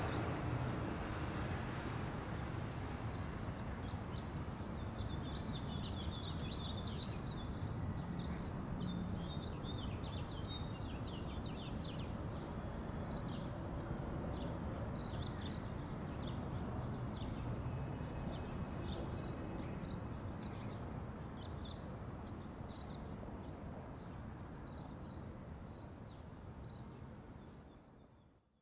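Outdoor ambience: small birds chirping repeatedly over a steady low rumble, fading out near the end.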